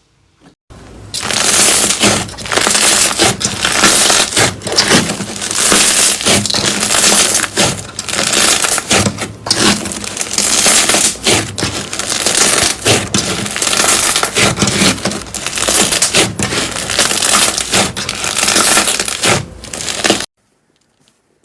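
Slime being squeezed and pressed by hand, a dense run of close-packed crackling and crunching that stops abruptly near the end.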